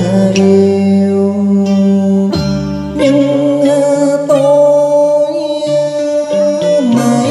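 Music led by plucked guitar, with a long held melodic note through the middle.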